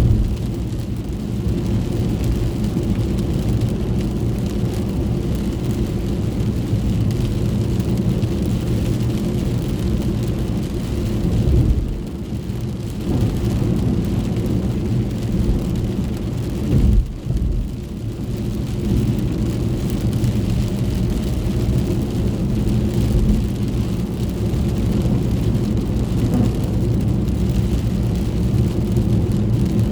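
Inside a moving car's cabin in the rain: a steady low road and engine rumble with a fainter hiss of rain on the car. The rumble briefly dips twice, a little before and a little after the middle.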